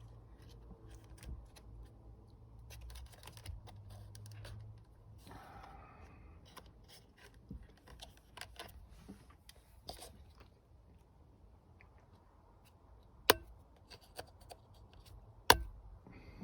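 Small plastic clicks, scrapes and rattles of hands working an airbag wiring connector, trying to unplug it, with two sharp louder clicks near the end.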